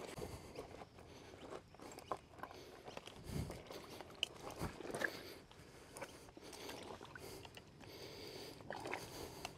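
Irregular crunching and scraping of footsteps on loose rock and concrete rubble, with a couple of low thumps about three and a half and five seconds in.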